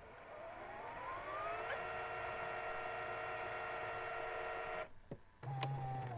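Sony 8mm Handycam camcorder's tape transport motor whirring, rising in pitch as it spins up over the first couple of seconds, then holding a steady whine until it cuts off. A short mechanical buzz follows near the end.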